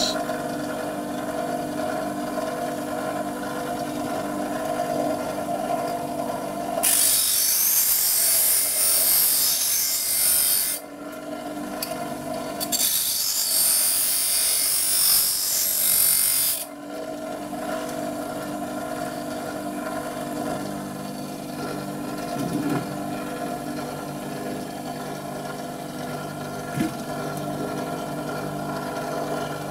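Bench grinder running with a steady motor hum. Twice, for about four seconds each and starting about a quarter of the way in, a steel twist drill bit is pressed against the emery wheel, adding a loud, hissing grind as its cutting edge is sharpened. The grinder then spins on alone.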